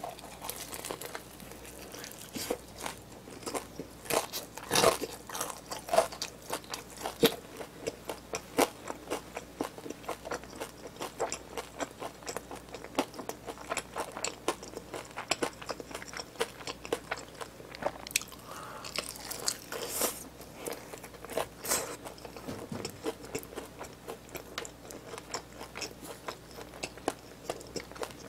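Close-miked biting and chewing of cheese-seasoned fried chicken drumsticks (BHC Bburinkle): a steady run of sharp crunches from the crispy coating, loudest in bursts about a third of the way in and again about two-thirds through.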